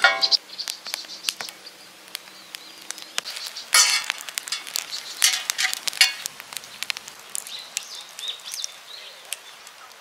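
Freshly lit kindling fire of axe-split wood crackling and popping in a steel fire pan, with a louder knock about four seconds in as split wood is laid on.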